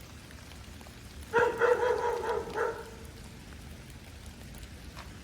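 Dog barking, a quick run of four or five short high yaps about a second and a half in.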